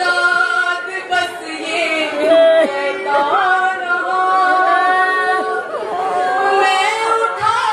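A woman singing a nauha, an Urdu mourning lament, unaccompanied into a microphone, holding long notes that waver and slide between pitches.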